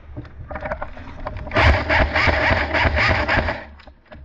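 Airsoft gun firing a long full-auto burst, a rapid mechanical rattle lasting about two seconds and starting about a second and a half in, with a few knocks just before it.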